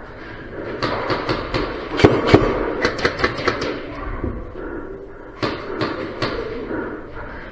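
Airsoft guns firing, sharp cracks in irregular single shots and short strings along with BB impacts. The loudest pair comes about two seconds in and another cluster comes past the middle. A murmur of voices runs underneath.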